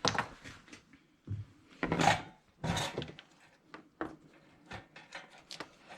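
Hands handling the wired parts of a toy oven's teardown: scrapes, rubbing and clicks of plastic and wire. There are louder scrapes right at the start, about two seconds in and near three seconds, then lighter scattered clicks.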